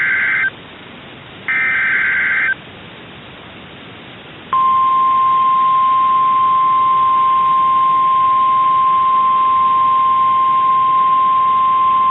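Emergency Alert System SAME header data bursts: two short, buzzy digital squawks about a second long and a second apart. About two seconds later the steady single-pitch NOAA Weather Radio 1050 Hz warning alarm tone starts and holds, the signal that a warning broadcast is about to follow.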